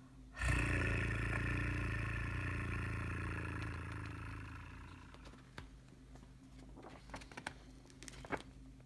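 A purr, made to illustrate the kitten's purr: a steady rumbling purr that starts about half a second in and fades away over about four seconds. A few soft clicks follow near the end.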